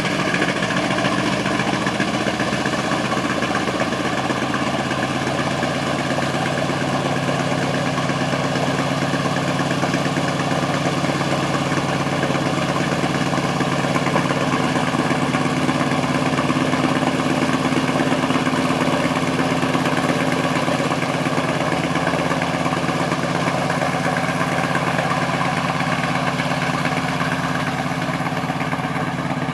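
De Havilland Canada DHC-3 Otter floatplane's engine running steadily at low power while the plane taxis on the water after landing.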